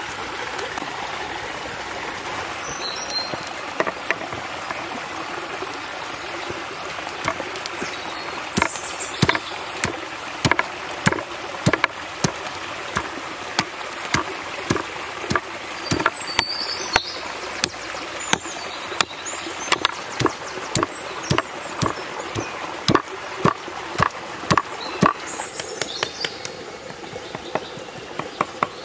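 Kitchen knife striking a wooden cutting board as raw beef is sliced, sharp irregular knocks that become more frequent after the first few seconds. A steady rushing noise runs underneath.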